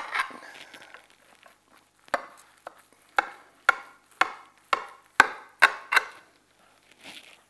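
Kitchen knife chopping down through a venison meatloaf in a glass baking dish: a run of about nine sharp knocks, roughly two a second, as the blade strikes the dish.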